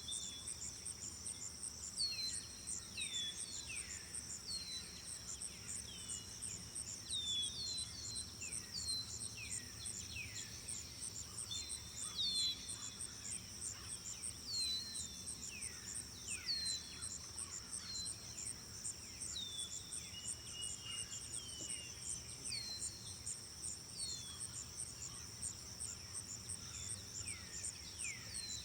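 Steady high chirring of crickets or similar insects, with short falling bird whistles repeated every second or so over it.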